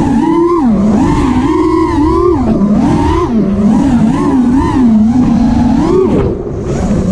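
Racing quadcopter's brushless motors and three-blade HQProp 5x4.5x3 propellers, heard through the onboard GoPro: a loud buzzing whine that rises and falls constantly with the throttle, dipping briefly a little after six seconds in.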